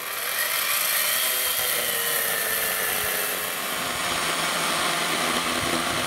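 Greenworks battery-powered electric chainsaw cutting through a thick log, a steady whine of motor and chain in the wood. Its pitch sags slowly as the motor labours under the load, and the saw felt like it was dying.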